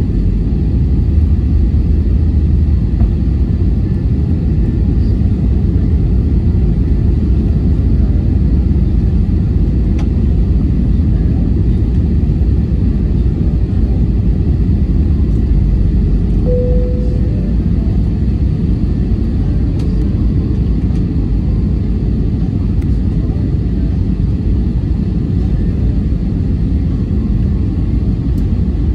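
Steady low rumble of an Airbus A320's engines and airflow heard from inside the cabin in flight, with one short high tone about sixteen seconds in.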